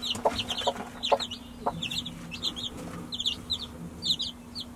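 Baby chicks peeping in quick runs of short, high chirps, while the mother hen clucks in short, low notes, mostly in the first couple of seconds.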